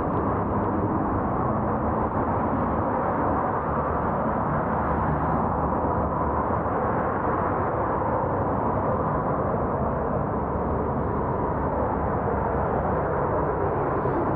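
Steady rushing wind and road noise while riding a bicycle, with nothing else standing out.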